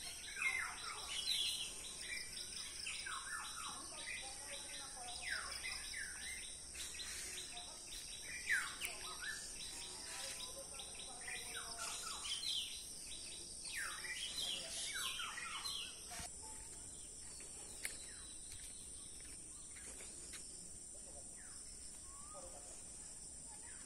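Small birds chirping and calling in many short, quick notes over a steady high-pitched insect drone. The birdsong is busy at first and thins out after about 16 seconds, leaving mostly the insect drone.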